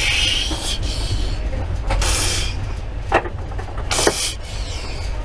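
Steady low rumble of a moving passenger train heard from inside the compartment, with a few short hissy sounds and two sharp clicks about three and four seconds in.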